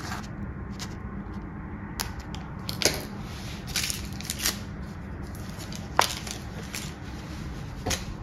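Scissors snipping the tip of a plastic piping bag and the filled bag being handled: a handful of separate sharp clicks and crinkles, roughly a second apart, over a steady low hum.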